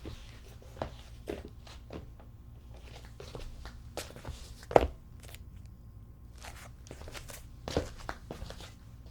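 Footsteps of a person walking in sandals, a run of short steps at an uneven pace with a pause of over a second; the loudest step comes about halfway through.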